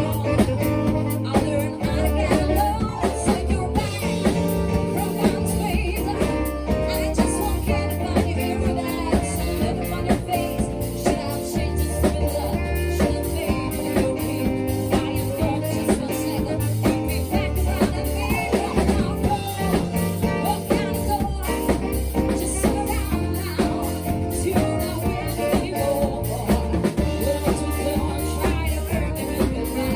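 Live band playing a song: a drum kit keeps a steady beat under bass notes, with singing over the top.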